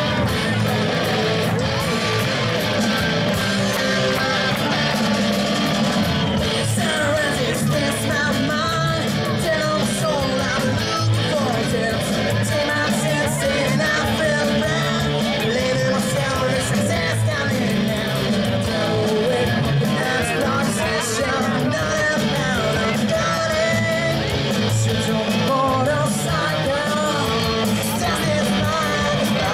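Live rock band playing a song: electric guitars, bass guitar and drum kit, with a male singer singing over them through the PA.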